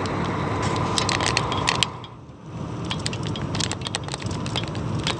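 Semi-truck running with a steady low rumble, overlaid by many sharp clicks and crackles. The sound drops away briefly about two seconds in, then picks up again.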